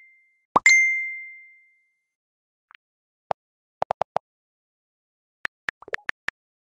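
Phone text-message alert dinging once: a quick rising chirp into a ringing tone that fades over about a second. It is followed by a scatter of short, soft clicks.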